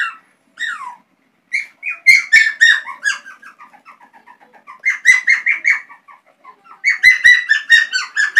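A man's voice made into high, bird-like chirping squeaks, in three quick runs of several chirps a second.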